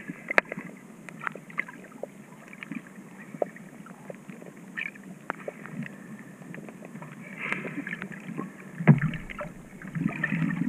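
Underwater ambience picked up by a submerged camera: a low steady hiss scattered with many short clicks and crackles, and a louder thump about nine seconds in.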